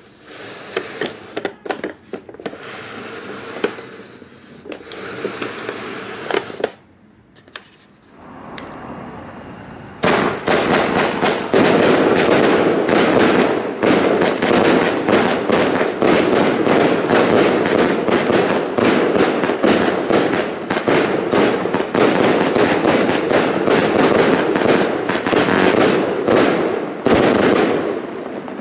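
Funke Corolla-Blue Z-1 56-shot fan-shaped firework battery firing: a rapid, dense string of launch reports and bursts with crackle. It begins about ten seconds in and runs for roughly eighteen seconds before stopping. Irregular knocks come in the first seconds.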